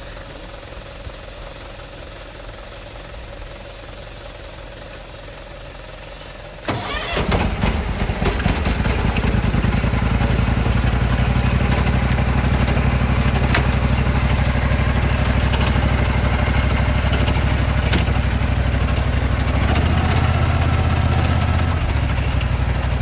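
Engine of an Iseki riding crop-management machine starting about seven seconds in and then running loud and steady, after a quiet low hum. Its tone shifts briefly near the end.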